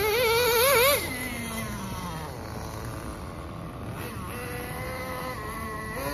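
Small two-stroke glow-fuel engine of an XTM X-Cellerator RC monster truck revving high with a quickly warbling pitch as the throttle is worked, then falling in pitch over a second or so. Later it holds a steady high note for about a second, and again near the end.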